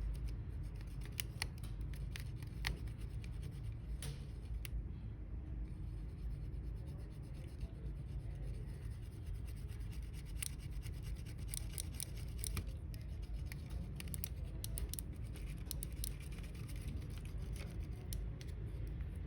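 Scattered small clicks and scratches from hands working on a computer mouse's small plastic parts during a battery replacement, over a steady low hum.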